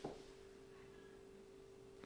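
Near silence: room tone with a faint steady hum, and a brief soft handling sound at the very start.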